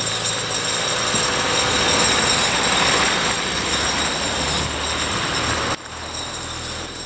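John Deere 810D forwarder driving past loaded with pulpwood: its diesel engine running under the rattle and clatter of snow chains on its tyres against the road. The level drops suddenly near the end.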